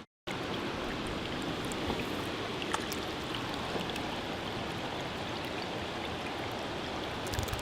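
Flood water running, a steady rushing noise with a few faint clicks over it.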